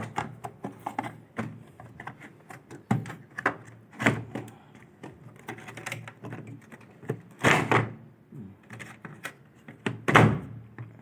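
Parts of a Polytron washing machine's water inlet being fitted back into place by hand: irregular clicks and knocks, with heavier clunks about four, seven and a half and ten seconds in.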